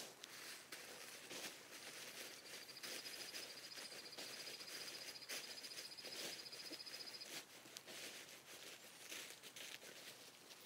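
Faint crinkling and rustling of the Zpacks Duplex's Dyneema tent fabric being stuffed into its bag. A high, even songbird trill comes in about two seconds in and stops about five seconds later.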